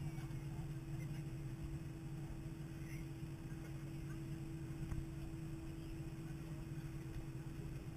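Airliner cabin noise on the ground: a steady low hum with two held tones from the aircraft's engines and air systems, unchanging throughout.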